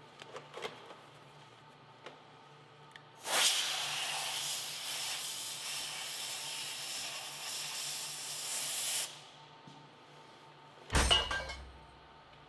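Aerosol spray can let off in one long hiss of about six seconds, then a sudden thump near the end.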